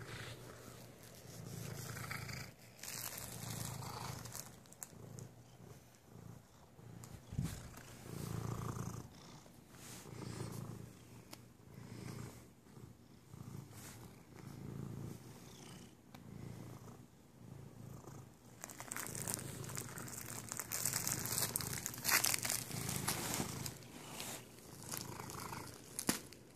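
Domestic cat purring close to the microphone, a low throb that swells and fades with each breath. Rustling noises join in during the last several seconds.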